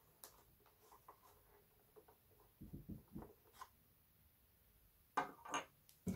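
Handling noises of small hard parts: light clicks and taps, a short run of dull knocks about halfway through, then two sharper knocks near the end.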